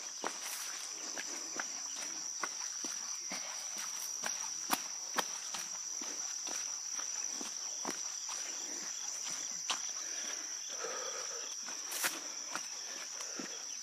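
Running footsteps on a dirt and grass trail, short soft footfalls about two a second, over a steady high-pitched insect chorus.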